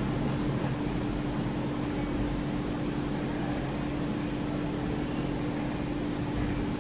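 Steady hum of a running household appliance, with one constant low tone over an even rumble.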